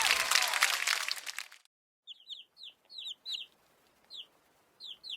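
A loud burst of noisy music with falling tones fades out in the first second and a half. Then a bird calls in short, high, downward-curving notes, singly and in quick pairs, with short gaps between.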